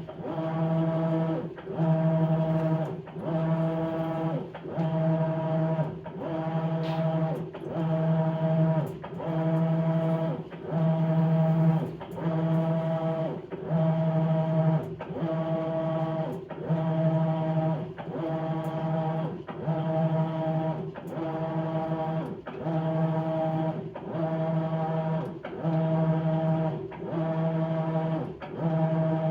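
Maytag Bravos XL top-load washing machine agitating a load of bedding. The impeller drive hums in a pitched tone that swells and sweeps in pitch about once a second, as it reverses back and forth through the wash.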